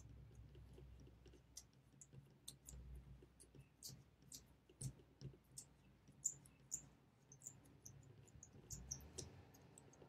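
Faint, irregular clicking of a brass Yale Y150/40 four-wheel combination padlock's number wheels being turned notch by notch, while a thin shim probes between the wheels to feel for the gates.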